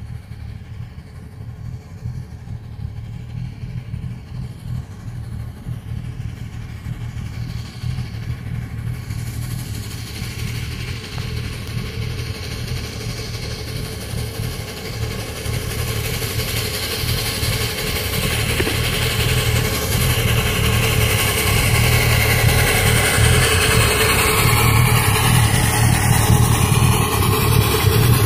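Miniature Daylight-style locomotive pulling a loaded train of riding cars, approaching and passing close. Its running sound and the rumble of the wheels on the rails grow steadily louder.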